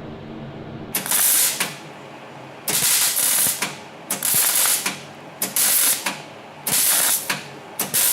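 MIG welder laying short stitch welds on car body sheet metal: six bursts of crackling hiss, each under a second, starting and stopping suddenly with short pauses between.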